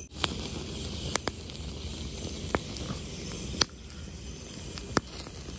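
Open wood fire burning under skewers of marinated paneer and vegetables, with a steady hiss and several sharp crackling pops.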